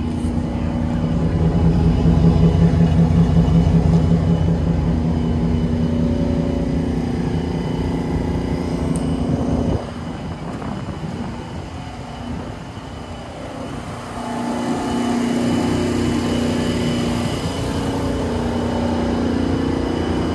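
Chevrolet Silverado 1500 pickup's engine idling, a steady hum that drops suddenly about ten seconds in and builds back a few seconds later.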